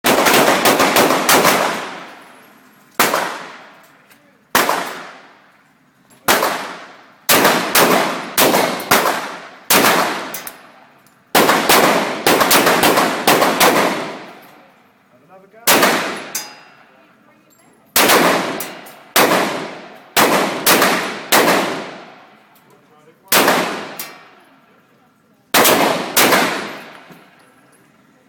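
Glock 34 Gen 4 9 mm pistol firing, several dozen shots, some single and some in quick strings of two to five about a third of a second apart, each shot followed by a ringing echo that dies away over a second or two.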